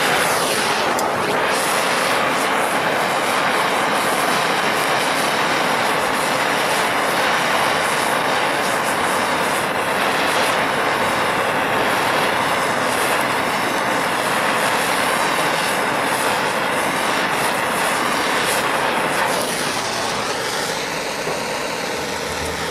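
Handheld propane torch flame burning with a loud, steady rushing hiss as it is played over painted sheet metal to blister the paint. It turns somewhat quieter near the end.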